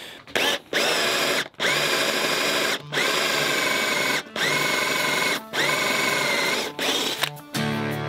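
Cordless drill with a Forstner bit boring into oak, run in short bursts of about a second with brief stops between, spinning up at the start of each burst. Music starts just before the end.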